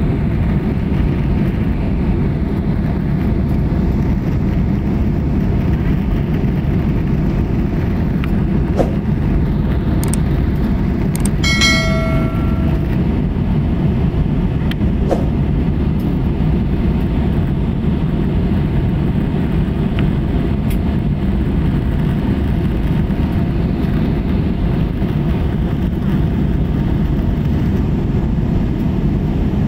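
Steady low rumble of cabin noise inside an Airbus A320-family jet airliner in flight, the engines and rushing airflow heard from a window seat. About twelve seconds in, a short ringing chime sounds once.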